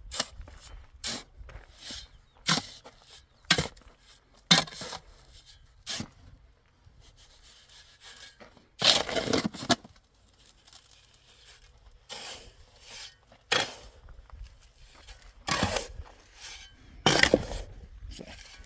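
A hand tool scraping and slapping through wet cement mortar in irregular strokes, some short and some drawn out for about a second.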